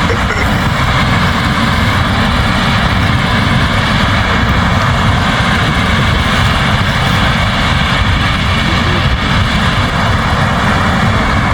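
New Holland CR10.90 combine harvester running steadily while threshing barley: a loud, unbroken drone of engine and threshing machinery with a heavy low rumble.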